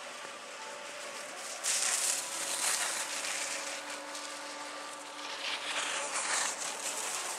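Skis scraping and hissing over packed snow, in two louder rushing swells about two seconds in and again near six seconds, over a faint steady hum.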